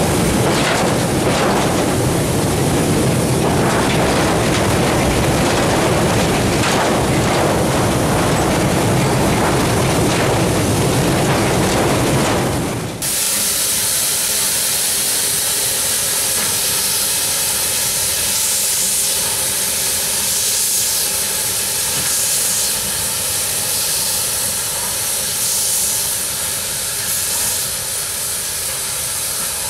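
Orenstein & Koppel narrow-gauge steam locomotive train running, heard from on board as a loud, steady rumble with wind on the microphone. About 13 seconds in this gives way abruptly to the locomotive approaching, steam hissing from its cylinder drain cocks in slow pulses.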